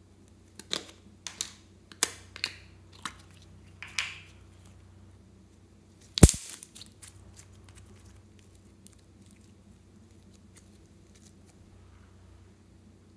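Flexible plastic slime tub squeezed by hand to force the slime out: a run of sharp crackles in the first four seconds, then one loud pop about six seconds in, followed by a few faint crackles.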